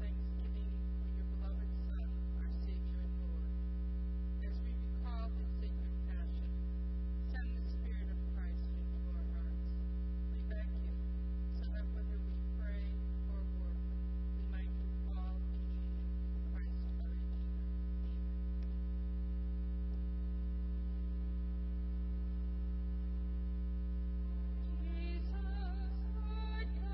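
Steady electrical mains hum with its higher overtones, with faint, scattered, indistinct sounds over it. Singing begins near the end.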